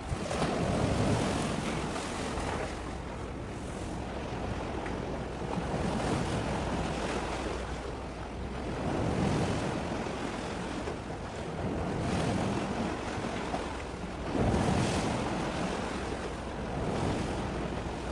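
Wind buffeting the microphone in uneven gusts that swell and fade every few seconds, over a steady low hum.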